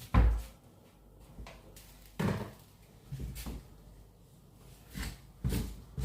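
Irregular knocks and thumps of kitchen handling, the loudest just after the start, then about four more spread over the next few seconds.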